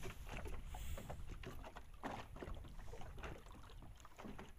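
Faint, irregular small clicks and knocks over a low rumble, around a small wooden boat on the water, as hands work a fishing line and a freshly caught fish.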